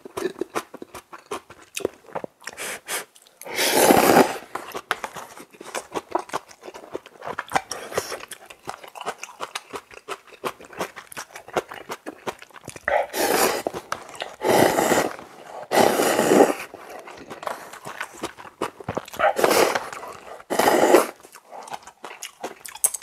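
A person eating cup ramen up close: about six loud slurps of noodles, with wet chewing and crunching between them.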